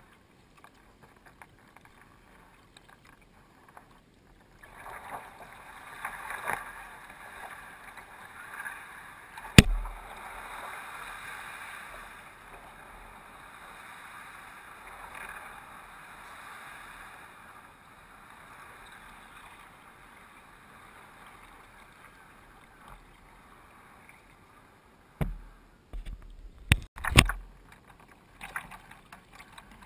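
Water swishing and trickling along a sea kayak's hull as it glides, fading away past the middle. A single sharp knock about ten seconds in, and a few more knocks and bumps near the end.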